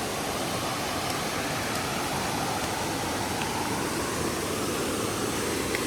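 Steady rushing of a river and waterfalls flowing through the gorge below.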